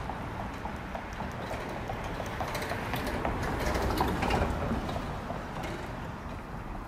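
Footsteps on pavement in a steady walking rhythm over street traffic, with a vehicle passing about three to four seconds in.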